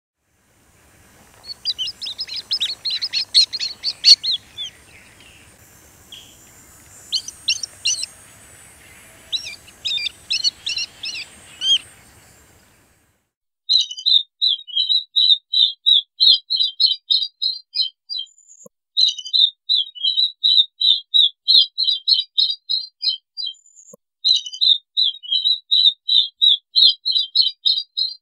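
White-collared swift (Streptoprocne zonaris) calling. First come bursts of rapid, high chattering calls over a faint background hiss. Then, after a short gap, three long runs of quick, high twittering notes, each about four seconds.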